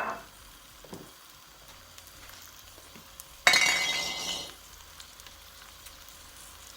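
Basmati rice frying in hot olive oil in a pan with a faint sizzle. A utensil clinks sharply against the pan at the start, and about three and a half seconds in comes a louder scraping rattle lasting about a second as the rice is stirred.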